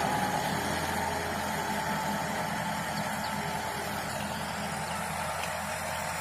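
Tractor diesel engine running steadily under load while pulling a tillage implement through the soil, slowly growing quieter as the tractor moves away.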